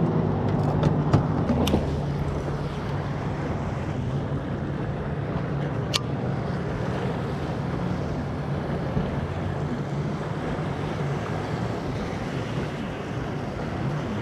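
Wind buffeting the microphone and choppy water lapping against a kayak hull, a steady rushing noise. A few sharp clicks come in the first two seconds, and one more about six seconds in.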